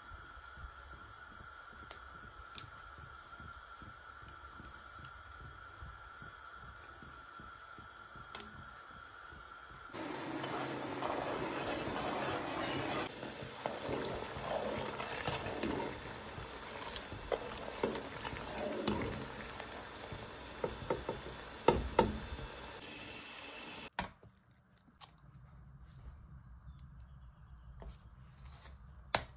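A steady faint hiss at first. About ten seconds in, louder liquid sounds start as a metal ladle stirs curdling milk in a pot, clinking and scraping against it, with a few sharp knocks just before the sound drops away.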